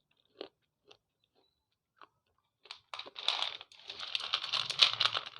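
Slate pencil being chewed: a few faint crunches, then dense brittle crackling crunches from about three seconds in.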